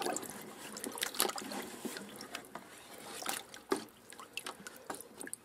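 Liquid sloshing and splashing in a plastic bucket as a wooden stir stick is worked through it, with irregular drips and splashes that get quieter near the end.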